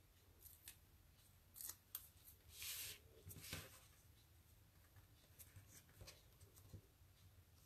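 Faint rustling and light clicks of paper and cardstock being handled and pressed down by hand, with a longer rustle about two and a half seconds in.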